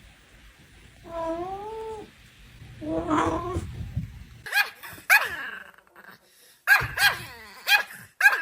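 A cat gives two drawn-out, wavering yowls, then a run of short, sharp, high yelps or barks from a dog starts about halfway through.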